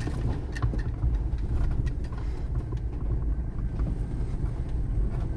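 Vehicle driving slowly over a bumpy dirt and sand road, heard from inside the cab: a steady low engine and tyre rumble with scattered knocks and rattles as it jolts over the ruts.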